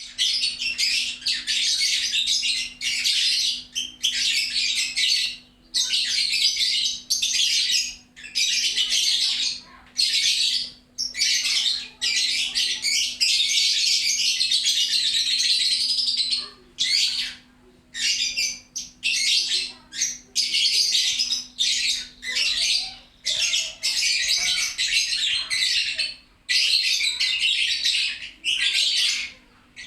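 Lovebird chattering in full song: long, rapid, high-pitched runs of one to four seconds, broken by short pauses, with a faint steady hum underneath.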